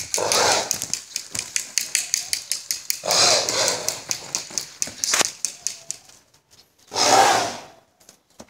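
A bay mare snorting hard three times as she prances on the tether: rough blasts at the start, about three seconds in and about seven seconds in. A fast run of sharp clicks, several a second, goes on under the first two snorts and stops about six seconds in.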